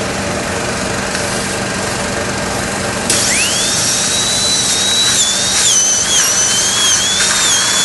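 Surgical drill handpiece driving a 9 mm disc cutter for a basal implant bone cut: about three seconds in it starts with a quickly rising high whine, then runs on with its pitch dipping and wavering as the cutter works in the jawbone. A steady hiss runs underneath.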